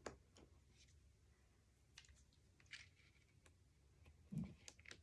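Near silence with a few faint clicks and a soft knock about four seconds in, from handling cardstock flaps and small craft magnets.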